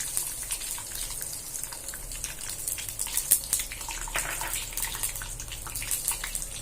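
Mustard seeds, cumin and urad dal sizzling in hot oil for a tempering, with a steady hiss and many small crackles and pops as the seeds splutter.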